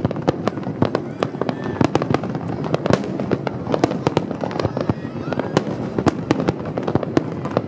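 Fireworks display: a dense barrage of aerial shells bursting in rapid succession, several sharp bangs a second with echo filling the gaps.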